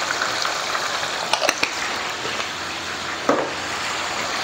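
Turmeric gravy boiling in a wok, a steady bubbling hiss, with a few quick clinks of utensils against the wok about a second and a half in and another short knock a little after three seconds.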